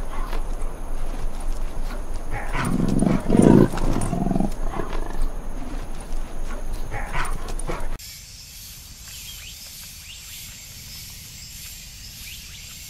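Sri Lankan leopard cubs growling as they tussle, loudest between about three and four and a half seconds in. After about eight seconds the sound switches abruptly to a faint, even high hiss.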